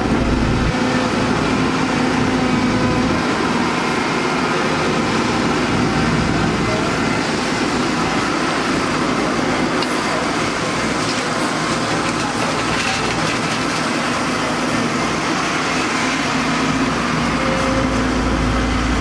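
Samsung wheeled excavator's diesel engine running steadily under working load as it digs and swings loads of dirt into a dump truck.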